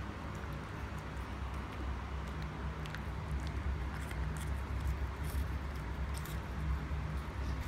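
Domestic cat eating wet flaked salmon food off a ceramic plate: soft, irregular small clicks and smacks of licking and chewing, over a steady low hum.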